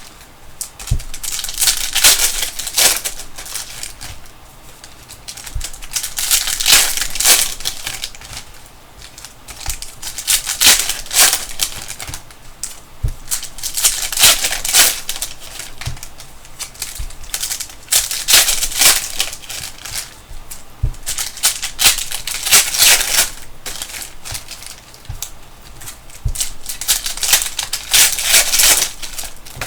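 Plastic-foil trading-card pack wrappers crinkling and tearing, with cards being handled, in irregular bursts of crackle and a few light knocks.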